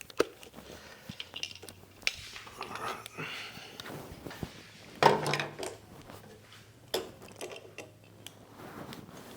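Metal clinking and clattering of jump-pack clamps and parts being handled and hooked up, with a louder knock about five seconds in.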